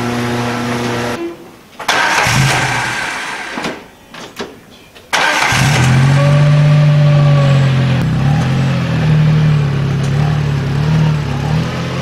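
Electric garage door opener motor running as the sectional door lifts, stopping about a second in. About five seconds in, a John Deere Gator XUV utility vehicle's engine starts suddenly and runs steadily.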